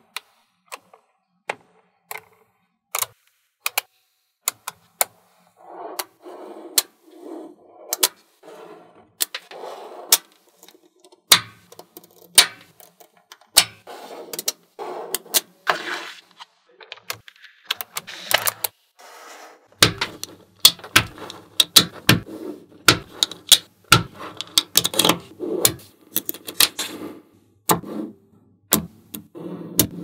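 Small magnetic balls clicking sharply as they snap together one at a time, with short rattling stretches as they roll and knock against each other. The clicks are sparse at first and come thick and fast in the last third.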